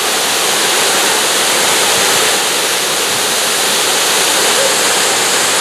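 Waterfall rushing, a steady, unbroken roar of falling water.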